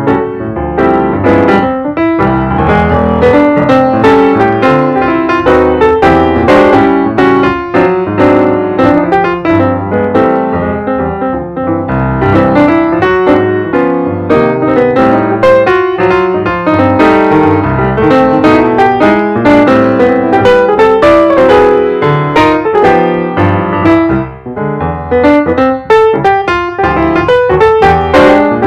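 Background piano music: a continuous run of piano notes with a melody over lower chords.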